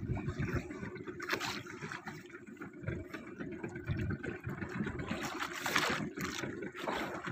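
Sea water sloshing and slapping against the hull of a small fishing boat, with irregular low thumps and a couple of brief swishes.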